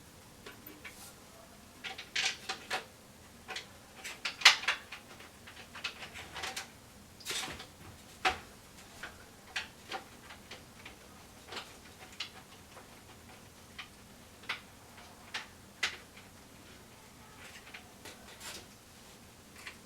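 Irregular clicks and knocks of a plastic 200mm case fan and computer case parts being handled while the fan is fitted, the loudest knock about four and a half seconds in.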